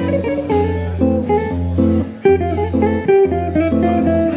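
Epiphone hollow-body archtop electric guitar played through an amplifier in a bluesy jazz style: plucked melody notes and chords changing several times a second over a steady low bass line.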